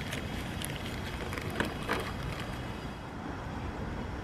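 A few light crinkles and clicks from handling a small plastic bag and an LED bulb being fitted into a tail-light socket, over a steady low rumble.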